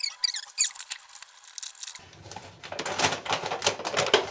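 Plastic flour bag crinkling as it is handled. From about halfway, dense rustling as flour pours from the bag into a plastic storage bin.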